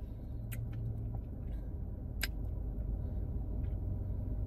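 Steady low hum and rumble of a car at rest, heard from inside the cabin, with a couple of faint clicks.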